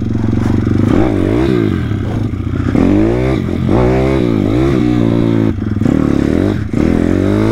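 YCF 150 SM pit bike's 150 cc single-cylinder four-stroke engine revved hard in repeated throttle blips, its pitch climbing and falling about six times, as the bike is lifted into a wheelie.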